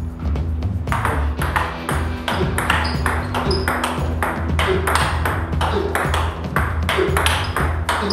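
Table tennis ball being hit back and forth: a quick, fairly even run of sharp clicks as the celluloid ball strikes the paddles and bounces on the table, starting about a second in.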